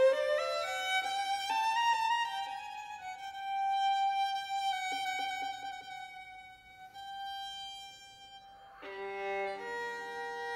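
Solo violin playing a quick rising run of notes, then holding one long high note that slowly fades. Near the end a fuller sound with lower notes comes in.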